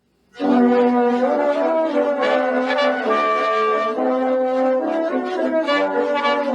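Brass music: several brass instruments playing held notes together, the pitches changing from note to note. It starts suddenly a moment after the start.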